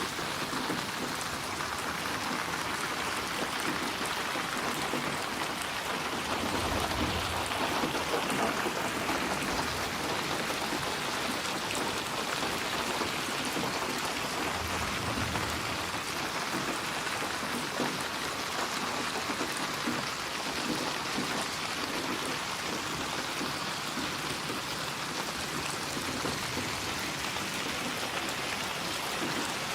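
Steady rain falling on a surface, a dense even hiss of drops. A soft low rumble swells twice, about seven and fifteen seconds in.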